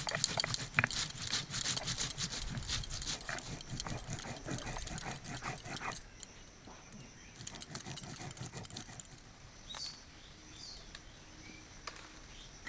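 Stone roller grinding cumin and coriander seeds on a wet stone slab (shil-nora), a gritty scraping of repeated strokes. About six seconds in the grinding stops and it goes much quieter.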